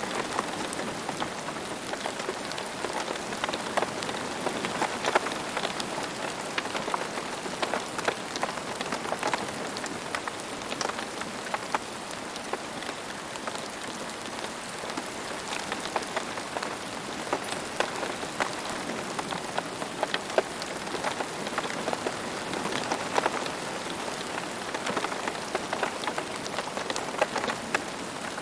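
Steady rain falling on a surface, an even hiss with many separate drops ticking through it.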